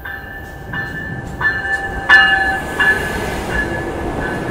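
Siemens SC44 Charger diesel locomotive pulling into the station and passing close by, its bell ringing about once every 0.7 seconds, loudest about two seconds in.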